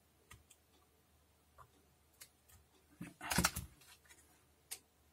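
Handling noise from a circuit board and small tools during hand-soldering: a few scattered light clicks and taps, with a louder brief scuffle about three seconds in.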